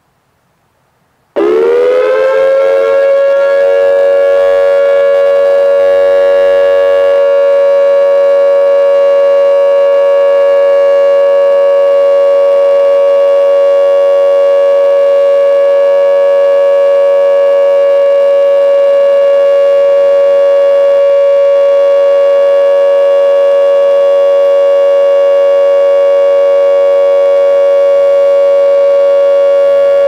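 Whelen WPS-2740 dual-tone electronic siren starting up loudly about a second and a half in, its pitch sweeping quickly upward and then holding a steady dual tone.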